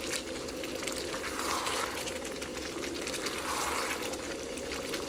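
Chicken curry sizzling and crackling in a covered wok, over a steady low hum.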